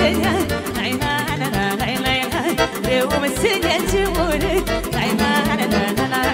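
Live Romanian folk dance music: a fast Oltenian sârbă with a quick, even beat and singing.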